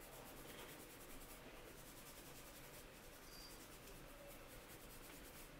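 Faint rubbing and scratching of fingers massaging conditioner into short, wet coily hair, in quick repeated strokes.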